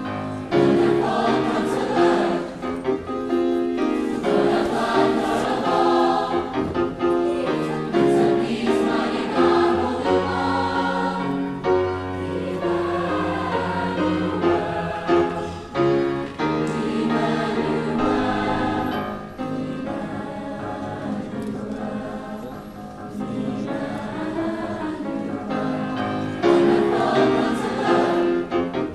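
A mixed choir of men's and women's voices singing together under a conductor.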